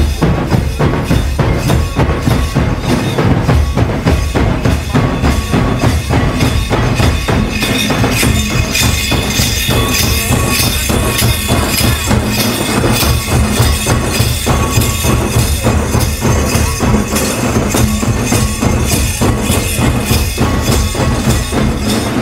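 Santali folk dance music: barrel-shaped hand drums beaten in a fast, even rhythm.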